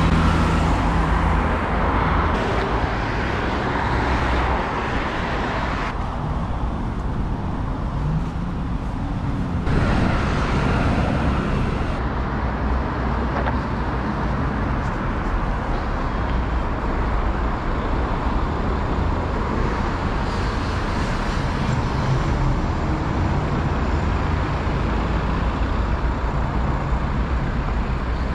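Heavy road traffic on a busy roundabout: cars and larger vehicles passing continuously close by, a steady loud rumble of engines and tyres that swells as each vehicle goes past.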